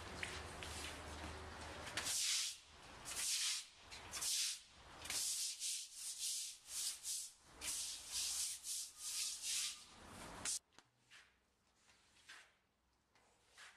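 A run of irregular rustling scrapes, roughly one or two strokes a second, after a steady low hum at the start. They stop abruptly about ten seconds in.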